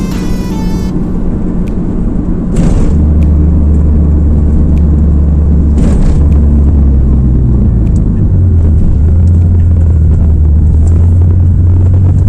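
Car driving, heard from inside the cabin: a loud, steady low engine and road drone that steps up in pitch about eight seconds in, with two sharp knocks, near three and six seconds in.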